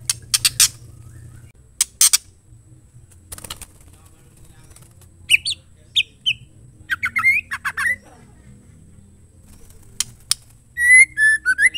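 Female white-rumped shama calling: a few short, harsh rasping notes in the first half, then clear whistled notes, ending in a quick run of whistles.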